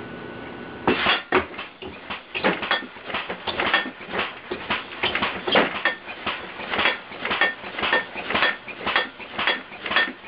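Computer-controlled, air-compressor-powered alarm bed going off: a rapid, uneven run of sharp knocks, about three or four a second, starting about a second in.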